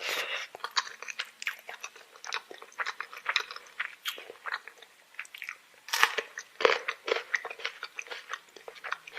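Close-miked eating sounds: a person chewing and crunching a mouthful of food with wet smacks, in a quick, irregular run of clicks and crackles.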